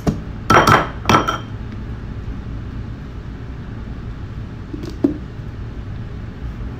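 Two short bursts about half a second apart, then a fainter one about five seconds in, as a nearly empty squeeze bottle of mayonnaise is squeezed over a ceramic bowl: the bottle is running out.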